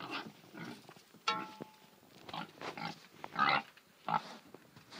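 A hungry domestic pig grunting over and over in short grunts, the loudest about three and a half seconds in.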